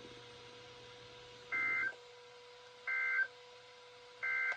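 NOAA Weather Radio SAME end-of-message data bursts: three short two-tone digital warbles about a second and a half apart, marking the end of the emergency alert broadcast. Under them runs a faint steady hum.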